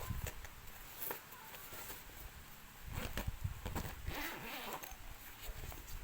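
Unboxing handling noise: a few sharp clicks, then a rasping rustle between about three and five seconds in.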